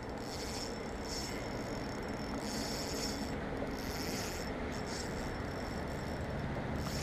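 Fishing reel being cranked in short, uneven spells, its gears and drag clicking and grinding, as a hooked carp is reeled in on a bent rod.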